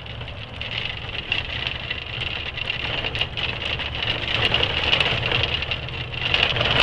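Truck engine running low and steady, heard inside the cab while driving over a rough, potholed dirt road, with a steady hiss and many small rattles and knocks from the cab on the bumps, getting somewhat louder toward the end.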